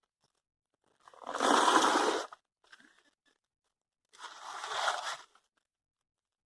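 Hoe scraping and crunching through dirt and stones, in two long strokes of about a second each.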